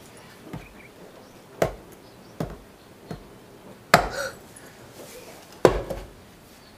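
A heavy knife hacking into the thick husk of a green tender coconut: about six dull chops at uneven intervals, roughly one a second.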